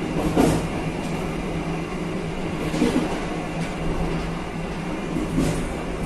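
Passenger train running along the track, heard from its rear: a steady rumble of wheels and wind with a low steady hum, and a few faint knocks from the wheels, the last two about two and a half seconds apart.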